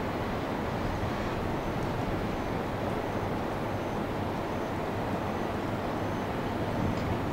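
Steady low rumble of distant city traffic, with no single event standing out.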